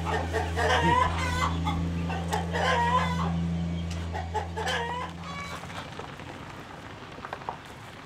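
Chickens clucking and calling, several pitched calls in quick succession that thin out after about five seconds. Under them a steady low hum runs and stops about five and a half seconds in.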